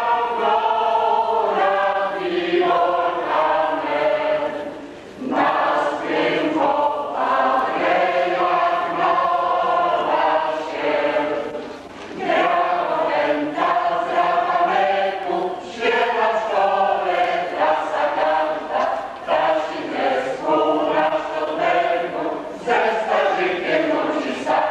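Mixed choir of women's and men's voices singing a waltz song, in long sustained phrases with brief breaks between them about 5, 12 and 16 seconds in.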